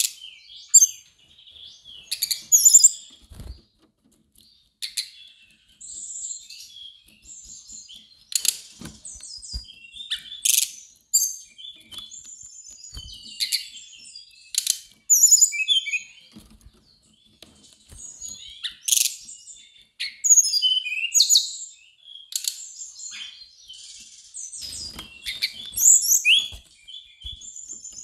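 Brown-chested jungle flycatcher singing: a run of short, varied, high warbling phrases with brief pauses between them.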